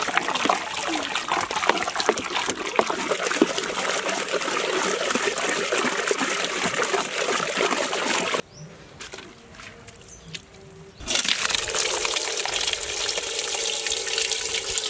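Wet squelching and splashing as chopped watermelon flesh is squeezed and mashed by hand into pulp in a large steel pot. After a brief quieter gap about eight seconds in, juice trickles and pours through a perforated steel colander into a steel pot.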